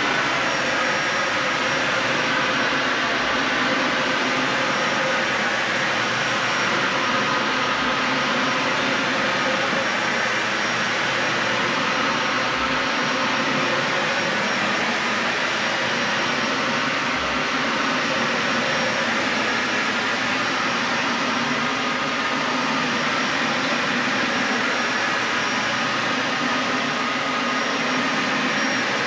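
Dyson Ball Animal 3 Extra upright vacuum cleaner running steadily as it is pushed over carpet, a constant rush of air with a faint high whine.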